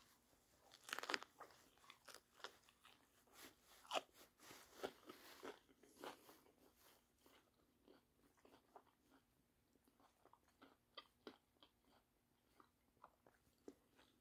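Close-up biting and chewing of a wrap filled with crunchy, barely blanched potatoes: irregular sharp crunches, loudest and densest in the first six seconds, then fewer and fainter.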